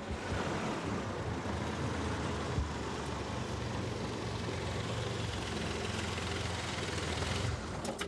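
Steady road-traffic street ambience: a low engine hum under an even rush of traffic noise. The sound changes near the end.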